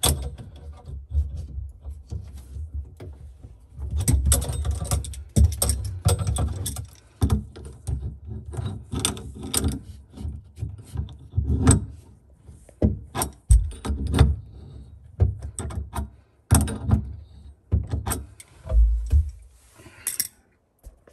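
Pliers gripping and tightening chrome supply-line nuts onto shut-off valves: irregular metal clicks, scrapes and knocks, with dull handling bumps.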